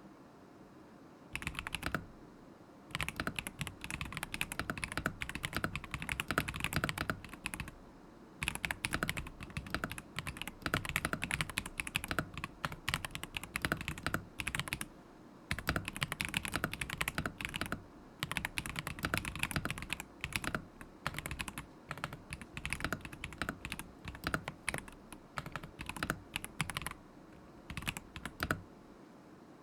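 Typing on a KZZI K75 Pro mechanical keyboard with Moment linear switches: rapid runs of keystrokes in bursts of a few seconds, broken by short pauses.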